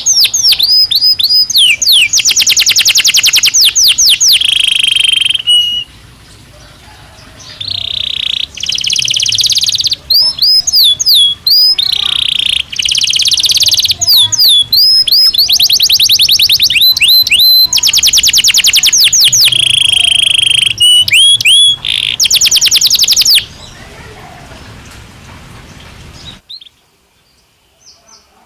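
Domestic canary (Belgian canary) singing loudly: fast trills of rapidly repeated notes alternating with sweeping whistled notes and short pauses. The song breaks off about three-quarters of the way through, leaving only faint scattered chirps.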